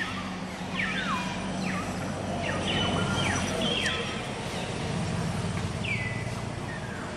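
Outdoor ambience: several high calls, each sliding sharply down in pitch, over a steady low engine hum.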